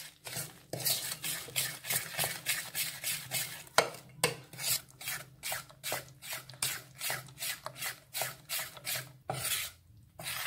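Metal spoon stirring and scraping thick biscuit-and-milk batter around a stainless steel bowl, in quick repeated strokes of about two or three a second.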